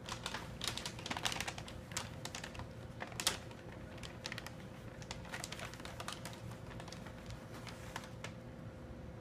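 Brown paper bag crinkling and rustling as a hand rummages inside it: irregular crackles, busiest in the first few seconds with one sharp crunch about three seconds in, then sparser.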